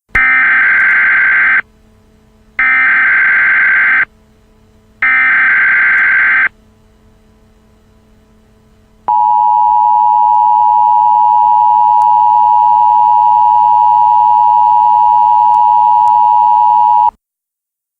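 Emergency Alert System SAME header: three harsh digital data screeches, each about a second and a half long with a pause of about a second between. After a gap of a few seconds, the steady two-tone EAS attention signal sounds for about eight seconds and cuts off sharply.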